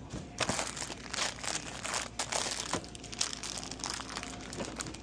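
Plastic candy wrappers crinkling as packs of candy bars are handled, in irregular crackles that are busiest over the first three seconds and thin out after.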